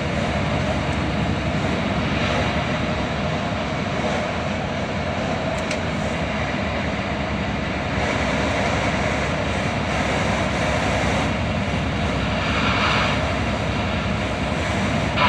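Steady engine drone and road noise from inside the cab of a large vehicle on the move.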